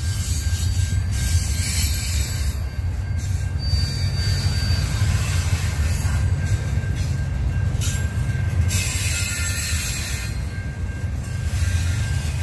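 CN freight train cars rolling past on the rails with a steady low rumble and a high hiss, and a faint thin wheel squeal over it.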